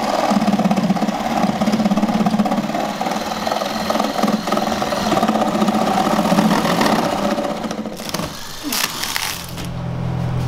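Reciprocating saw cutting through a plywood subfloor with a steady buzz, stopping about eight seconds in. A few knocks follow, then a low hum near the end.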